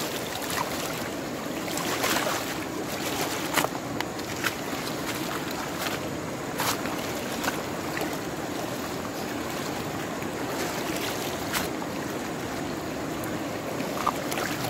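River water running steadily, with a few short, sharp clicks scattered through it.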